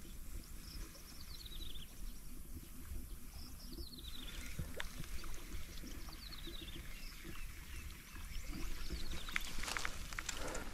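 A bird calls three times, each call a quick run of high notes falling in pitch, over a steady low background rumble. A few clicks and rustles come near the end.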